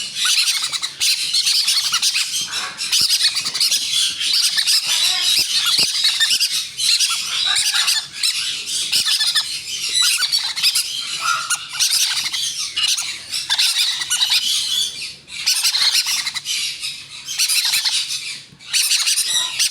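Green-cheeked conure chicks squawking almost without pause, breaking off briefly a few times near the end: the food-begging calls of parrot chicks being handfed.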